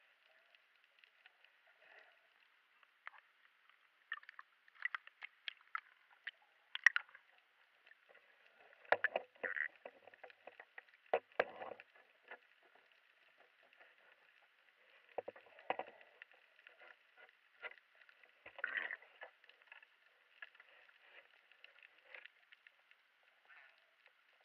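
Underwater ambience: a faint steady hiss with scattered sharp clicks and knocks, and a few short, fuller rushes of water noise about 9, 11, 16 and 19 seconds in.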